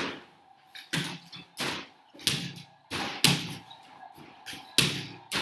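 A string of irregular knocks and bangs, roughly one a second: basketballs hitting the backboard and rim of an indoor arcade-style basketball hoop game and dropping onto its return ramp.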